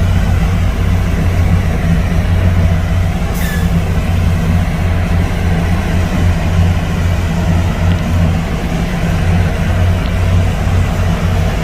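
Heavy diesel engine of a road-construction machine running steadily with a low drone. A brief hiss with a short falling squeak comes about three and a half seconds in.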